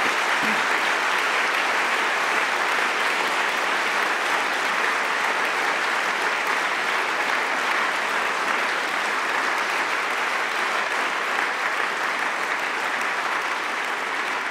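Large audience applauding steadily, with the clapping easing slightly near the end.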